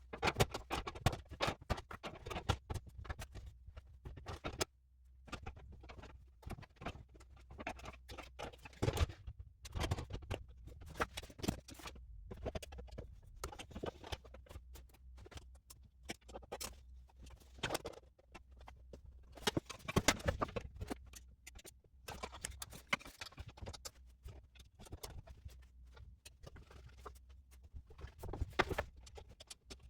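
Rapid, dense clicking, tapping and clattering of box fan parts and screws being handled during reassembly, sped up in a time-lapse, over a low steady hum.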